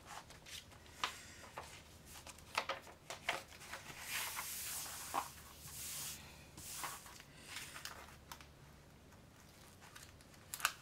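Rustling and crinkling of a diamond painting canvas and its paper release sheet as they are folded over and pressed flat by hand, with scattered sharp crackles.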